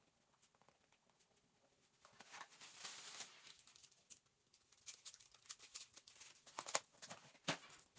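Crinkly material being handled: soft rustling starting about two seconds in, then a run of sharp crackles and clicks.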